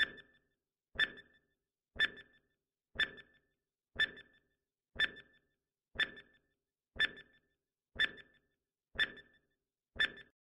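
Countdown timer sound effect: a short tick once a second, eleven in all, with silence between, as the quiz clock counts down from ten to zero.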